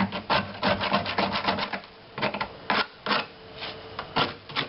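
Putty knife scraping and chipping loose, bulged paint and rust scale off a rusted steel van body panel in quick, uneven strokes.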